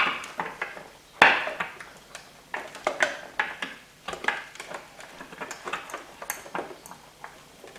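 Multimeter probe tips tapping and scraping on the terminals of old diesel glow plugs, with the loose steel glow plugs clinking against each other, during a resistance check: an irregular run of sharp metallic clicks and clinks, the loudest at the start and about a second in.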